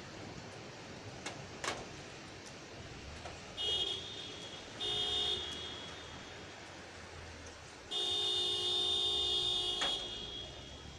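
Car horn honking three times: two short toots, then a long blast of about two seconds.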